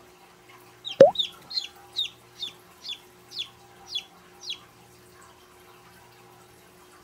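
Newly hatching chick peeping as it pushes out of its shell: about nine short, high, downward-sliding peeps, roughly two a second. A sharp knock comes just before the peeps, about a second in.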